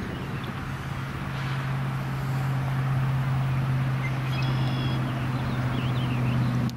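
Diesel engine of an EMD FP9A locomotive running steadily under load as the freight train approaches slowly, growing louder over the first few seconds. Birds chirp briefly toward the end.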